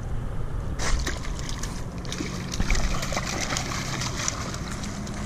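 A small stingray splashing and thrashing in shallow water at the shoreline as it is reeled in. The splashing starts about a second in and runs on as choppy, crackling water noise.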